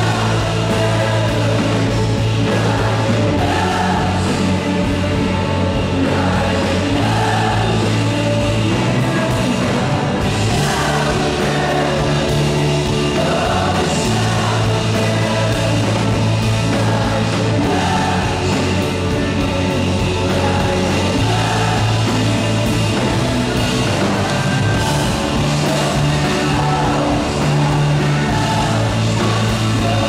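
Live worship rock band playing at full volume: electric guitars, bass, drums and keyboard, with a lead voice singing over steady held bass notes.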